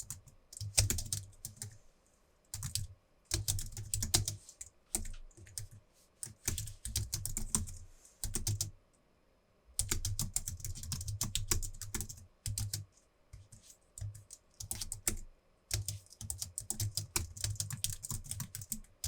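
Logitech MX Keys full-size keyboard being typed on hard, its low-profile scissor-switch keys clicking in rapid runs broken by short pauses.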